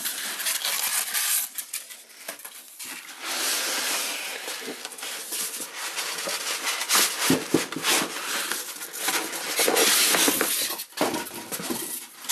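Cardboard and paper packaging being handled: rustling, scraping and sliding as a cardboard box is opened and a boxed humidor is pulled out and unwrapped, with a few knocks.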